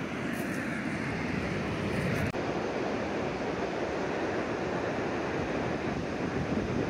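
Steady rushing outdoor noise, with one brief dip a little past two seconds in.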